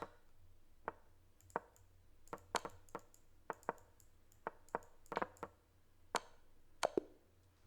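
Computer mouse clicking, about twenty sharp clicks in irregular quick runs, some in close pairs, as chess pieces are dragged and dropped at speed in an online game.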